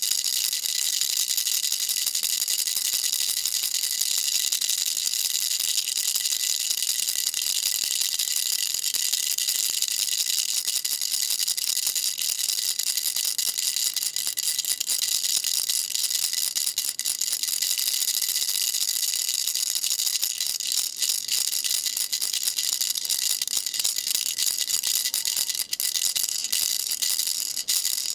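Baby rattle shaken steadily, a dense, high-pitched rattle with no pause. In the last several seconds the shaking breaks up into separate clacks.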